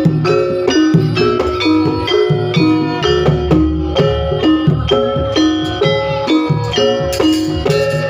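Jaranan Pegon music: a Javanese gamelan-style ensemble of struck pitched metal percussion and drums over a heavy bass, playing a steady, brisk rhythm.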